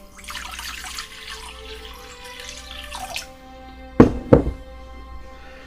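Water poured into a bowl for about three seconds, then two sharp knocks close together about four seconds in, over soft background music.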